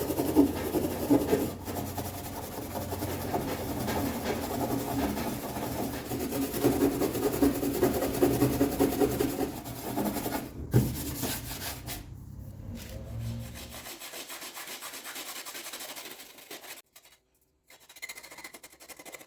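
Rasping, scraping tool work on sheet aluminum runs steadily for about ten seconds. A single knock comes near eleven seconds in, then more scraping until it stops about fourteen seconds in.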